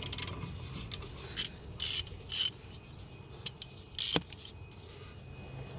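Hand ratchet wrench clicking in several short strokes, with a single metal clink about four seconds in.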